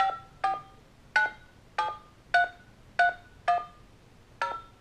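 Smartphone dialer keypad tones as a phone number is keyed in: eight short two-tone touch-tone (DTMF) beeps, one per key press, at an uneven typing pace.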